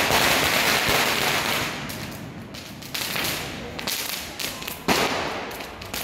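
Street firecrackers going off: a dense crackle of bangs for about two seconds, then single sharp bangs about three and five seconds in.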